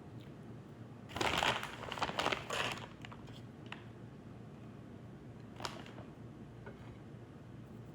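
Plastic bag of shredded cheese crinkling as it is handled and the cheese is shaken out, in a run of rustles about one to three seconds in, then a single light click a few seconds later.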